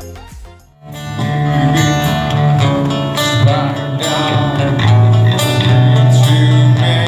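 Earlier music fades out, and about a second in a small live acoustic band starts playing: strummed guitars over steady, deep bass notes.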